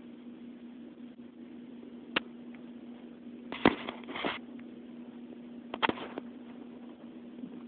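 Plastic potato chip bag crinkling in two short clusters of loud rustles, after a single sharp click about two seconds in, over a steady low hum.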